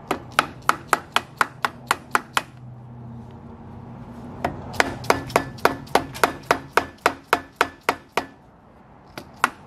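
A hammer tapping rapidly on the stuck water pump housing of a 2013 Honda 150 outboard's lower unit, working it loose from the shaft. The taps come about three a second in two long runs, with a pause of about two seconds between them, then two more taps near the end.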